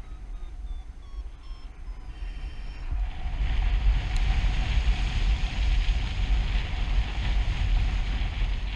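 Wind buffeting the microphone of a harness-mounted camera on a paraglider in flight: a steady low rumble and airy hiss that grows louder about three seconds in. In the first few seconds a faint series of short beeps steps up and down in pitch.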